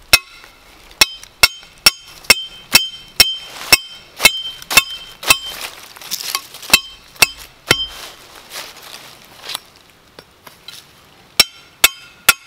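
Steel trap stake being hammered into soft ground with the striking head of a Groundhog trapping tool: sharp, ringing metal-on-metal blows about two a second, stopping for a few seconds near the end before the blows resume.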